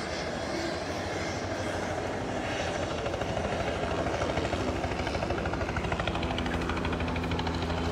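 Aircraft engine running: a steady drone with a fast, even pulsing beat, growing a little louder about three seconds in.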